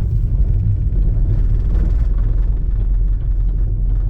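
Steady low rumble inside a car's cabin, even throughout.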